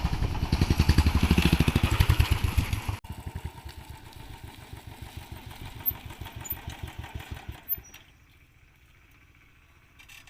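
Motorcycle engine running with a fast, even beat. It is loud for about the first three seconds, cuts off sharply to a quieter running sound, and fades out about two seconds before the end.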